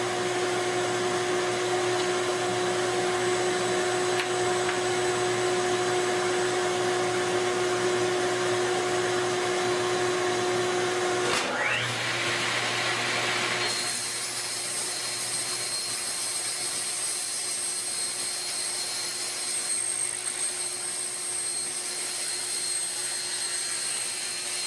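An electric motor running steadily with a constant whine. About halfway through, the sound shifts briefly with a short rising glide, then settles into a different, hissier steady running.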